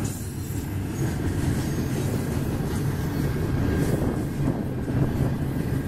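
Double-stack intermodal well cars rolling past on steel wheels, a steady low rumble of wheels on rail.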